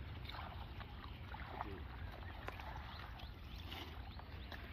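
Shallow water splashing and sloshing in short, irregular splashes over a steady low rumble.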